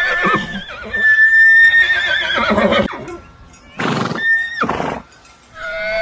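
Horse whinnying: three high, quavering neighs, each falling away in pitch at the end.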